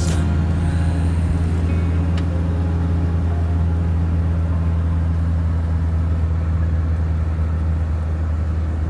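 A motor vehicle running steadily: a constant low engine drone with road noise.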